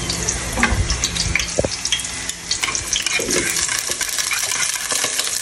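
Chopped onion and garlic sizzling steadily as they hit hot cooking oil in a steel pot, with light clicks and knocks of chopsticks scraping them off a wooden cutting board.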